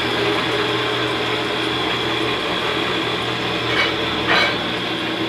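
Mechanized cassava-flour roasting pan running: a belt-and-pulley drive turning the stirring paddles through the flour, with a steady hum. About four seconds in, two short scraping sounds.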